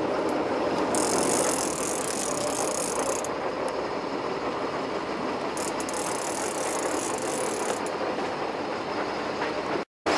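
Steady rattling, rushing noise of a fishing boat, engine running and water moving past, with two stretches of sharper hiss over it; the sound cuts out for a moment near the end.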